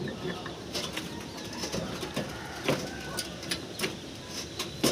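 Irregular light clicks and metal knocks of hand tools working on diesel engine parts, about a dozen scattered through, the sharpest a little past halfway and at the very end, over faint high chirps in the background.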